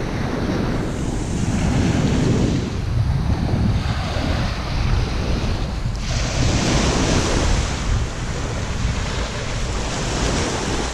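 Small waves breaking and washing up a sandy shore, in swells that come and go, with wind buffeting the microphone in a steady low rumble.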